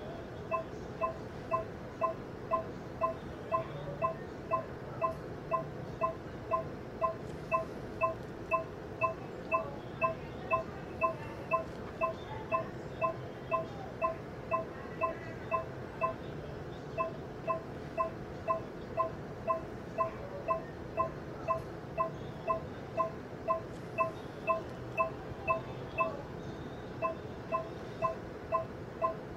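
Varian TrueBeam linear accelerator running a cone-beam CT scan as its gantry rotates: a short electronic beep repeating about twice a second, with two brief pauses, over a steady low machine hum.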